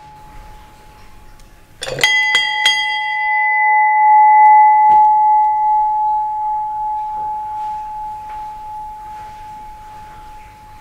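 A bell struck three or four times in quick succession about two seconds in, then a single clear tone rings on, swells slightly and slowly fades away.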